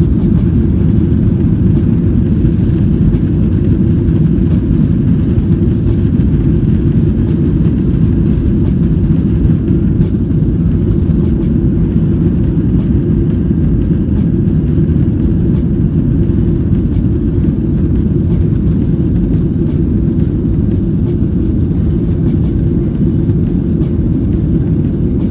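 Steady low rumble of cabin noise inside a Boeing 737-900 taxiing, its CFM56-7B engines running at low taxi power.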